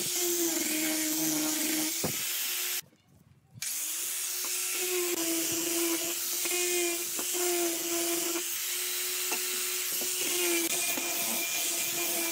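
Angle grinder with a sanding disc running against pine, a steady motor whine over the hiss of the abrasive on the wood. The sound cuts out briefly about three seconds in, then the whine comes back rising in pitch as the grinder spins up.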